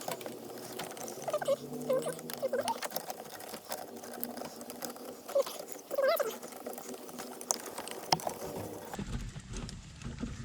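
Plastic vacuum line tubing being worked by hand through the engine bay, with scattered clicks and rustles and short squeaks as it rubs and catches against the parts around it.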